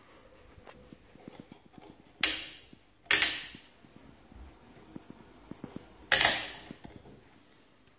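Three loud, sharp clacks, each dying away over about half a second, with lighter clicks and rattles between them, as a foldable magnetic exercise bike's padded handles below the console are worked by hand.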